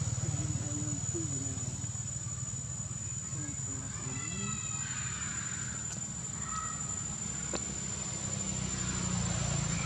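Outdoor background of a steady low rumble from distant traffic, with faint distant voices and a few short high chirps about halfway through and near the end.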